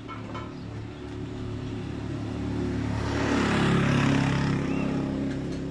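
A steady motor hum that swells louder with a rush of noise about halfway through, then eases off.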